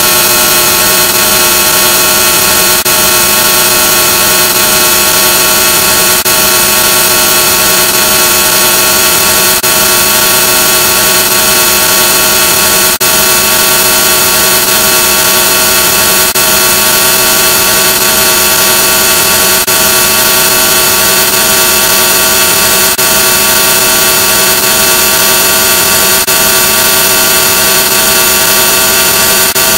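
Loud, heavily digitally distorted drone: many steady held tones over a harsh hiss, with a faint click about every three seconds.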